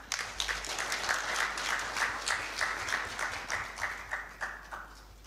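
Audience applauding, breaking out at once and dying away near the end.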